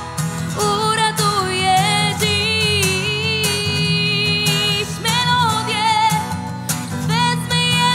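A female vocalist singing long held notes with vibrato over a strummed acoustic guitar.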